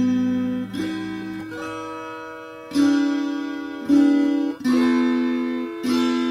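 Instrumental stretch of a folk song: acoustic guitar playing plucked notes, each ringing out and fading before the next, about one a second.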